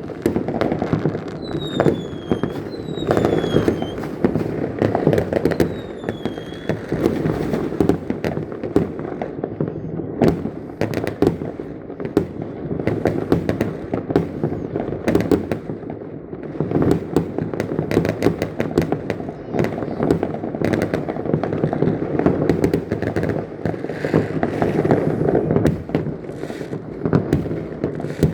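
Fireworks going off without pause: a dense stream of crackles and bangs over a rumbling background. Three short falling whistles come in the first few seconds.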